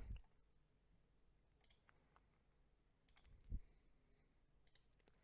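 Near silence with a few faint computer mouse clicks and one soft low thump past the middle.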